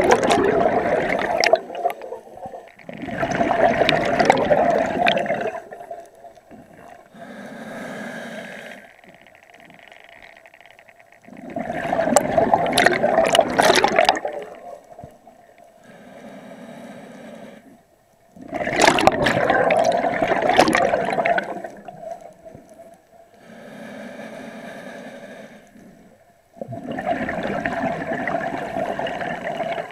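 Scuba diver breathing underwater through a regulator: long loud bursts of bubbling exhalation alternate with quieter hissing inhalations, in a slow cycle repeating about every seven seconds.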